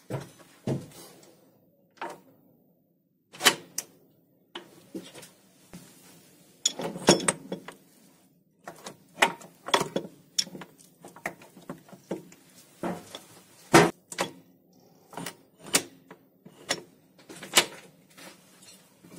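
Metal clinks, knocks and short scrapes at irregular intervals as a steel clutch sleeve on the friction shaft is worked onto its shift fork inside a lathe headstock.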